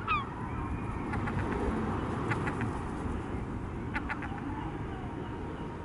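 Gulls calling: several short, sharp cries, the first falling in pitch just at the start and more around two and four seconds in, over a steady low rush.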